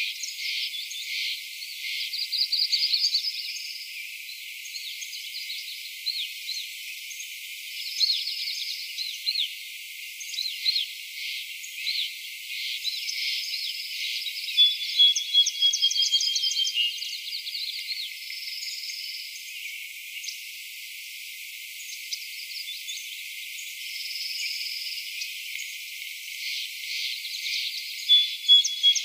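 High-pitched outdoor chirping from small animals: repeated chirps and short trills, with a long, slightly falling whistle about halfway through and again near the end.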